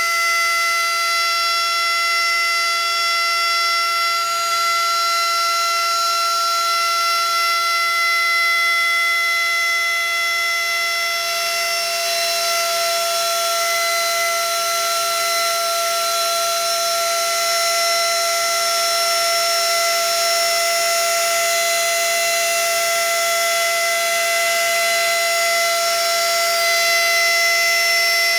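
Brushless-motor CNC spindle (Turnigy P2627L 4200kv) running at a steady high speed: a high-pitched whine of several fixed tones over a hiss that grows somewhat louder about ten seconds in.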